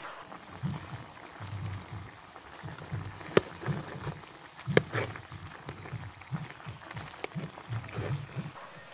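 A metal spoon stirring food in a steel pot over a wood fire: scraping and dull knocks, with a few sharp clinks of the spoon on the pot, the two loudest near the middle.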